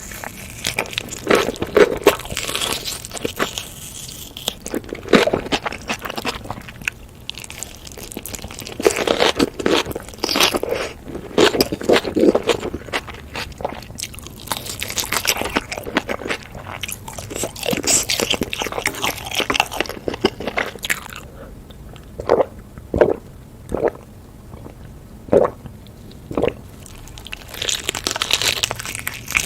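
Close-miked ASMR eating: crunchy biting and chewing, in the compilation of kimchi-wrapped fire noodles and black bean noodles. In the last third the chews come as separate crunches about once a second.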